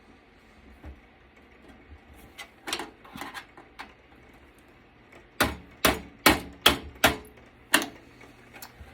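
Sharp knocks and clicks of hard parts being worked inside a desktop computer case: a few scattered light taps, then about six loud knocks in quick succession starting about five and a half seconds in.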